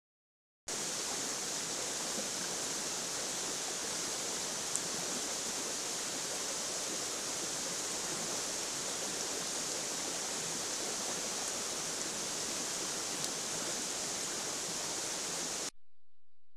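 Steady, even hiss from a trail camera's microphone that cuts in under a second in and cuts off abruptly near the end, with one faint tick about five seconds in.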